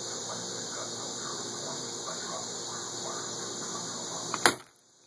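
A single sharp shot from a cheap BB gun about four and a half seconds in, over a steady background hiss with faint chirping.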